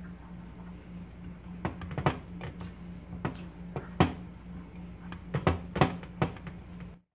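A spoon stirring thick chocolate brigadeiro sauce in a pan, knocking and scraping against the pan's sides and bottom at irregular moments, over a steady low hum. The sound cuts off suddenly near the end.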